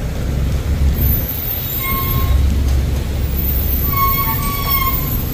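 Steady low rumble of vehicle noise, with two brief faint high-pitched squeals, about two seconds and four seconds in.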